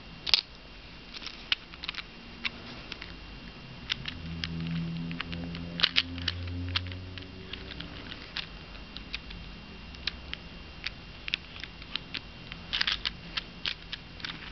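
Small hard plastic parts of a toy magic-set prop clicking and tapping as they are handled and fitted together, in irregular sharp clicks with clusters near the start, about six seconds in and near the end. A low hum rises for a few seconds in the middle.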